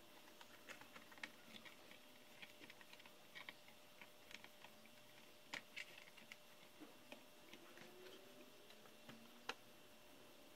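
Faint, irregular small clicks and taps of plastic and circuit-board parts being handled as an HP Compaq Presario CQ61 laptop's motherboard is fitted into its plastic base and a ribbon cable is worked into its connector. One sharper click comes about nine and a half seconds in.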